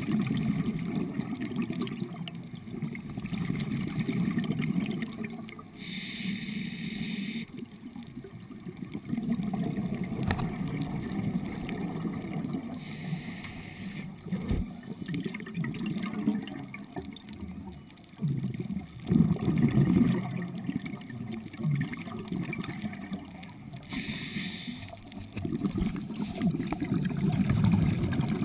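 Underwater sound on a scuba dive: a scuba regulator exhausts bubbles in three bursts several seconds apart, over a continuous low rumbling of water noise.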